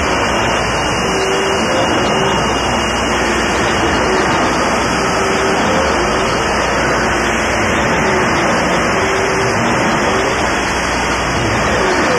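Power electronics music: a loud, steady wall of harsh distorted noise, with a wavering tone sweeping up and down through it again and again.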